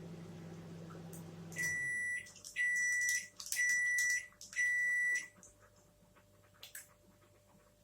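An electronic beeper sounds four evenly spaced high beeps, each about half a second long, roughly one a second. A steady low hum cuts off just before the first beep.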